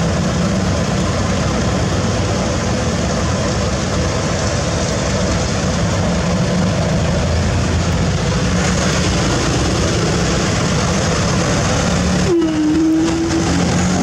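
Heavy diesel machinery running loudly and steadily. A steady high whine joins near the end.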